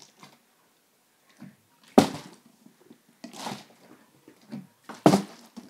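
Large plastic water bottle, partly filled with water, being flipped and landing on carpet: two dull thuds, about two seconds in and again near the end, the second the louder.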